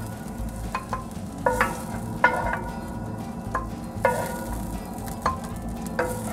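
A spoon scraping and knocking against a metal frying pan of cooked-down onions, about ten irregular knocks that each set the pan ringing, over a faint steady sizzle.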